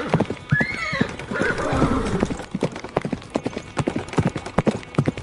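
Horse sound effect: hooves galloping in a fast irregular beat, with a short whinny about a second in.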